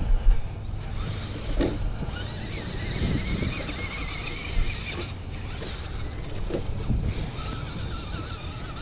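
Electric motor and gearbox whine of an RC rock crawler driving, a high wavering whine that rises and falls as the throttle is worked, with a few knocks from the truck on the rocks. A steady rumble of wind on the microphone lies under it.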